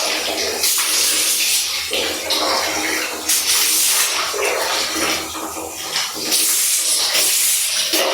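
Water splashing and gushing in loud, uneven surges that come and go about every second.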